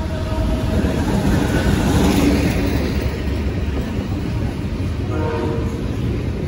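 Freight train passing close by: steady rumble and clatter of double-stack intermodal well cars rolling on the rails. The tail of a locomotive horn fades out at the start, and a short horn blast sounds about five seconds in.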